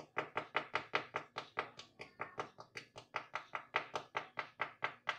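The crisp, deep-fried pastry crust of an aloo samosa crackling as fingers squeeze it, in a quick, even run of crunches about six a second. The crackle is the sign of a very crispy crust.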